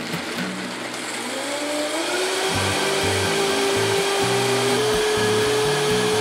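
Vitamix blender running on high, blending cashews and water into a creamy miso dressing. The motor whine rises over about two seconds as the speed dial is turned up, then holds steady, with a small step up in pitch about five seconds in.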